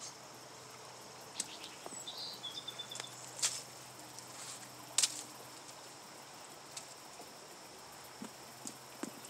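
Insects calling steadily with high, even tones, and a short bird call about two seconds in. A few sharp clicks cut through, the loudest about five seconds in.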